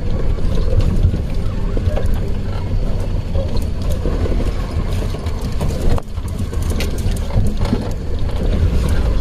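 Maruti Gypsy driving over rough, sandy off-road ground in two-wheel drive: a steady low engine and road rumble with scattered rattles and knocks from the body. The rumble dips briefly about six seconds in.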